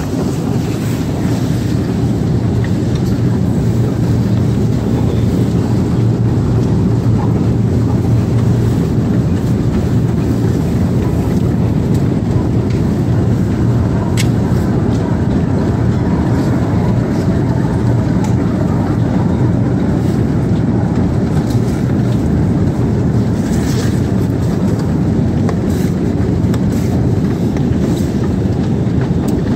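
Escalator running: a steady low mechanical hum and rumble from its drive and moving steps, with a couple of faint clicks.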